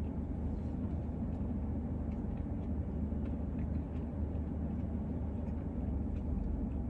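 Steady low hum of a car idling, heard from inside the cabin, with a few faint soft clicks over it.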